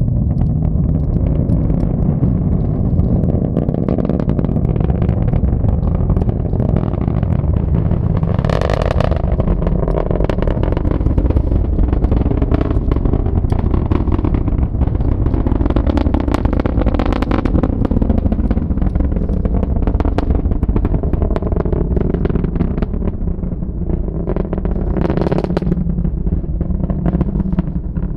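Falcon 9 rocket's nine Merlin engines during ascent: a loud, steady rumble with a rough crackle running through it. Two short, higher-pitched sounds stand out, one about nine seconds in and one near the end.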